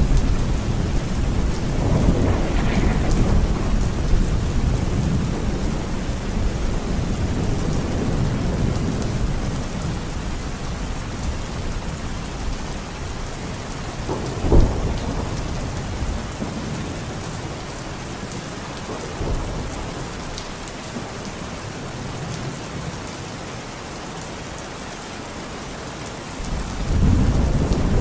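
Heavy rain falling steadily, with thunder. A rumble fades over the first few seconds, a single sharp thunderclap comes about halfway through, and a new rumble rises near the end.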